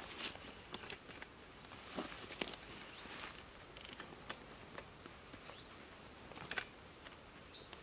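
Faint scattered clicks and light knocks, a few a second at most, the sound of small gear and things being handled by someone moving about.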